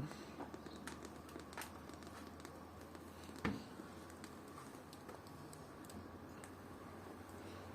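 Washing machine running a wash with heavy foam: a faint steady motor hum, soft crackling and patter from suds and wet laundry in the drum, and one louder thump about three and a half seconds in.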